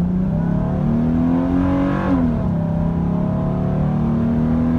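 2014 Chevy Silverado's V6 pulling under acceleration through a K&N cold air intake, heard from inside the cab. The engine note rises, drops sharply at an upshift about two seconds in, then climbs again.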